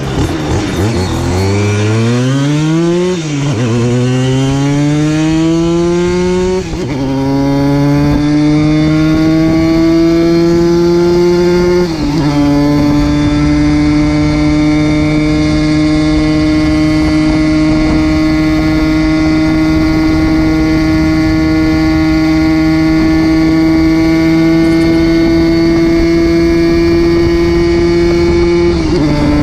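Two-stroke Simson moped engine with an 85 cc BT Spezial cylinder and a Jackmotors expansion-chamber exhaust, accelerating hard through the gears. The revs climb quickly and drop at three upshifts in the first twelve seconds. In the next, taller gear they rise only slowly for about seventeen seconds before another shift near the end. The owner says the bike is geared too long and struggles to come onto the pipe's power band in fifth gear.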